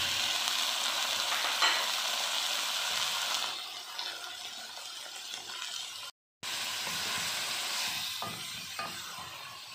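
Raw chicken pieces sizzling in hot oil with chopped onions in a metal pan, just added and being stirred with a wooden spoon. The sizzle is loudest for the first few seconds, then settles lower, with a brief dropout about six seconds in.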